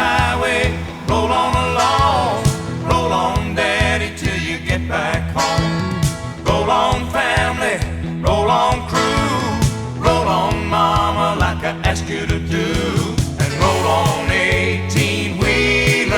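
Outro music: a country-style song with a singing voice over guitar, bass and a steady beat.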